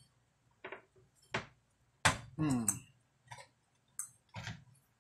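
Pliers clicking against metal parts inside a Behringer Europower EP4000 power amplifier as a stuck part is worked loose, a few sharp clicks spread across the few seconds, mixed with short vocal grunts.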